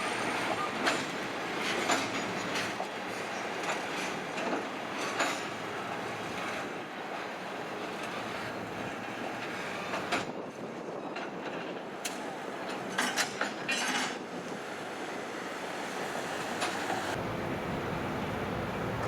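Freight train on a cement works siding rolling past, its wheels clicking over the rail joints at irregular intervals over a steady rumble.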